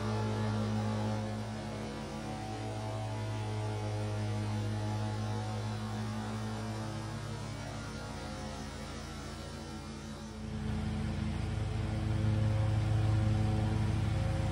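John Deere Z930M zero-turn mower's V-twin engine running steadily while mowing. About ten seconds in the sound changes abruptly and gets louder.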